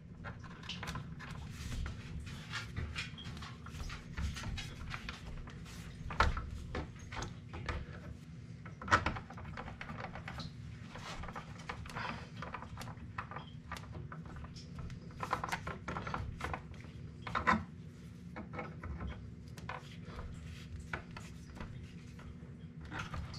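Hands handling electrical wires in a plastic junction box: irregular small clicks, taps and rubbing as wire nuts are twisted and pliers work the wires. A faint steady low hum sits underneath.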